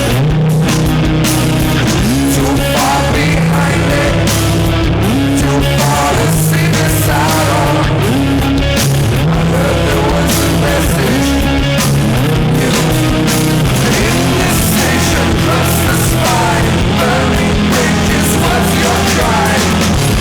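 Loud rock music with steady, held bass notes under a dense band sound.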